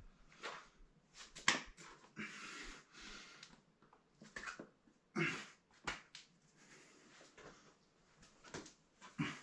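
Rock climber's short, forceful breaths and exhales while pulling through moves on an overhanging boulder, with a few sharp scuffs or slaps of hands and shoes on rock.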